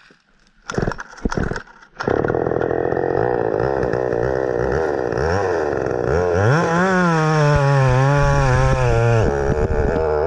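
Two-stroke chainsaw engine on a minibike, running through a lightly modified stock muffler. After a few short bursts it starts about two seconds in, then revs up and holds high revs as the bike pulls away, dropping briefly near the end.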